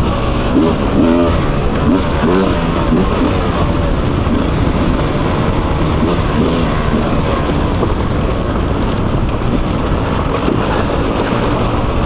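Beta 300 two-stroke dirt bike engine running while being ridden, its pitch rising and falling with the throttle, most clearly in the first few seconds, over a steady rushing noise.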